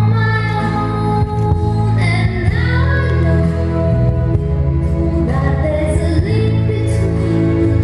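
Slow music with a singing voice and long held notes, played as accompaniment to the routine.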